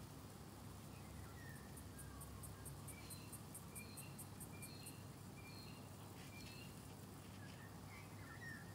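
Faint garden ambience: a quick run of high, thin chirps, about five a second, for a few seconds, along with scattered short bird whistles.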